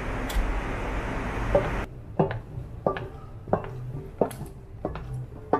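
Steady airliner cabin noise. After a cut about two seconds in, high-heeled shoes clack on metal escalator steps, about one and a half sharp steps a second.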